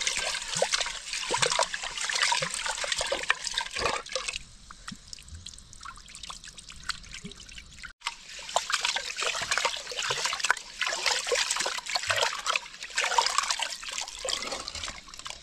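Water trickling and splashing, with many small clicks and drips. It thins out for a few seconds near the middle, then picks up again.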